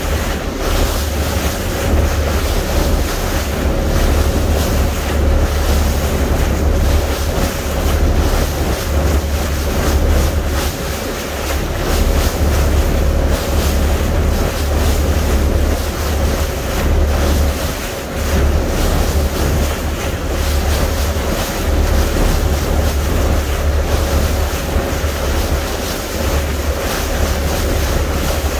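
Wind buffeting the microphone on a fishing boat under way, with water rushing along the hull and a steady engine hum underneath.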